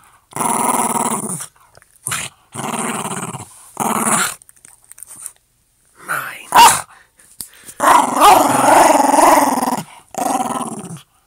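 Dog play-growling in repeated bouts while chewing a rubber Kong ball, with a short loud bark about halfway through and a longer growl that wavers up and down in pitch near the end.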